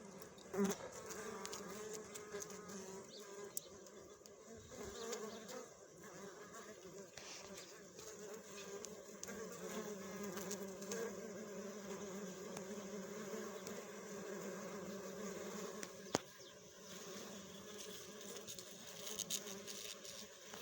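Bees buzzing: a steady, low buzz that wavers slightly in pitch throughout. There is a short sharp sound about half a second in and a click about 16 seconds in.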